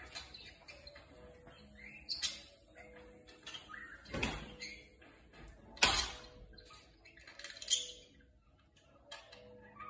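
Budgerigar giving short, scratchy chirps and chattering calls at irregular intervals, the loudest about six seconds in and again near eight seconds.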